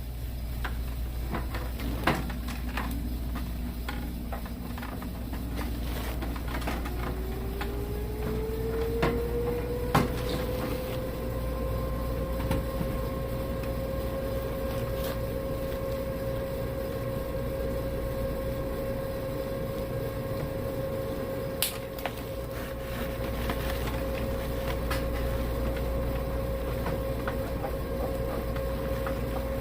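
An electric motor in the air-conditioning equipment spinning up: a whine that rises over several seconds and then holds steady, over a steady low hum, with a few sharp clicks and knocks from handling of the unit.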